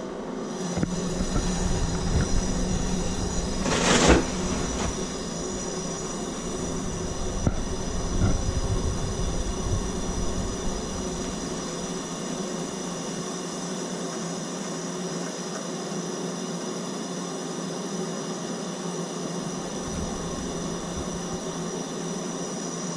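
Soldering torch burning steadily while a copper joint on a shower valve is heated for soldering, with a sharp click about four seconds in.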